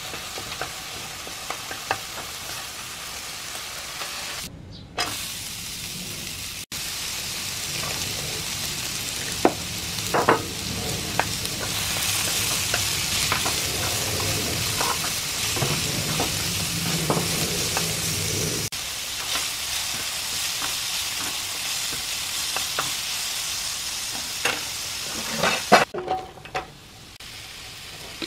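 Julienned carrot, then Korean zucchini strips, stir-frying in oil in a nonstick pan: a steady sizzle as they are tossed with tongs, with scattered sharp clicks of the tongs on the pan. The sizzle drops out briefly twice, a few seconds in and near the end.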